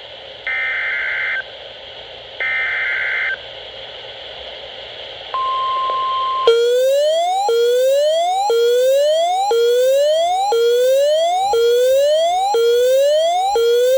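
Emergency Alert System SAME header for the next alert: two harsh digital data bursts about two seconds apart over radio hiss. A steady single-pitch NOAA Weather Radio attention tone begins about five seconds in, and about a second later a siren whoop, rising in pitch, repeats about once a second over it.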